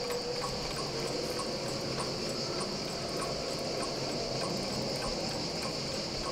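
Steady high-pitched drone of insects, with a small mechanical wind-up alarm clock ticking faintly and evenly, about twice a second.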